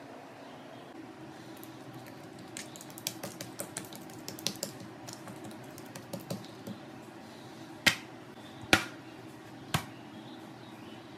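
Oiled hands pressing and spreading Malabar parotta dough on a countertop, with a run of light sticky taps and pats, then three sharp slaps about a second apart near the end as the dough is spread and stretched thin.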